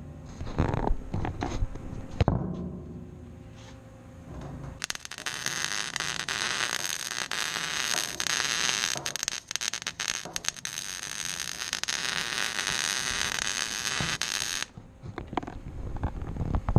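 A few knocks on metal, then an electric welding arc running for about ten seconds with a steady sizzling crackle, the bacon-like sound of a good weld, before cutting off abruptly.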